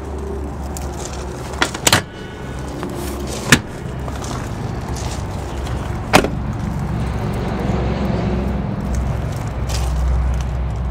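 Handling noises from a Ford Excursion's rear seat and door: sharp clicks and clunks about one and a half, two, three and a half and six seconds in, the one near three and a half seconds the loudest, over a steady low rumble.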